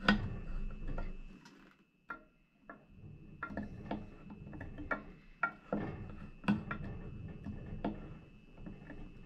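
Light, irregular clicks and handling noises from hands turning the head of a rotary fly-tying vise over and working the thread bobbin, about a dozen small ticks spread across the stretch.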